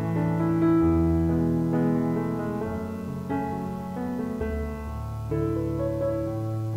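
Background piano music playing slow, sustained chords.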